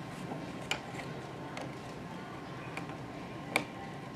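A knife blade scraping and picking at the cut edge of vinyl-topped flooring to clear melted debris from a vent opening. There are a few light clicks and scrapes, the sharpest about three and a half seconds in, over a steady low hum.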